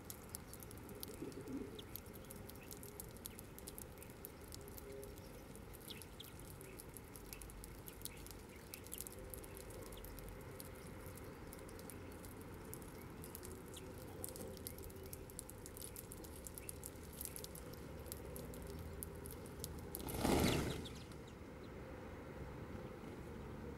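A flock of greenfinches feeding on seed on the ground, a steady scatter of small sharp ticks and clicks from pecking and husking. About 20 seconds in comes a sudden loud whirr of many wings as the whole flock takes off at once. After that the ticking stops.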